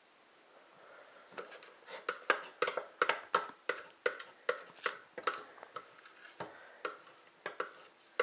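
Spoon clinking and tapping against a mixing bowl and baking pan while cookie dough is scooped out and dropped in tablespoon portions: a quick, irregular run of light clicks, about three a second, starting about a second in.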